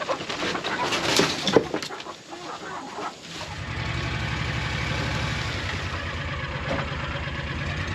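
A few sharp knocks and rattles in the first couple of seconds, then a vehicle engine idling steadily from about three and a half seconds in.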